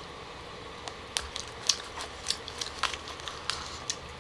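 Close-up eating sounds of crisp green grapes being bitten and chewed: irregular short, wet clicks, beginning about a second in.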